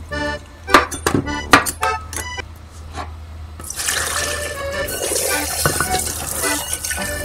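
A kitchen knife chops through a zucchini onto a cutting board: a few sharp knocks in the first couple of seconds. Then, a little past halfway, a kitchen tap starts running hard into a steel sink as a bowl is rinsed under it. Background accordion music plays throughout.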